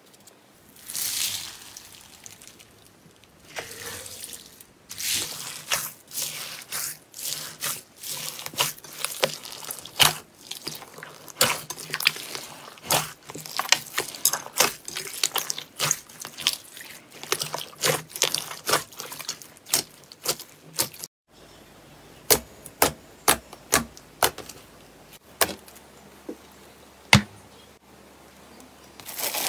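Bead-filled crunchy slime being pressed and kneaded by hand, giving a fast run of sticky pops and crackles. After a cut about two thirds of the way in, clear slime pressed on a wire grill gives sparser, separate pops.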